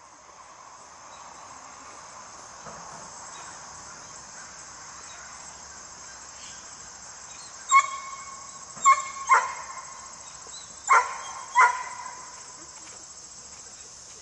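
A dog barking five times about halfway through, in two quick bursts of three and then two, over the steady high chirring of crickets.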